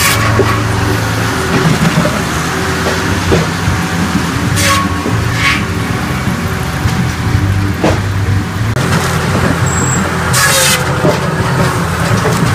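Hydraulic firewood processor running under load: a steady engine and hydraulic drone as it saws, splits and conveys logs. A few short sharp noises stand out, the loudest about ten seconds in.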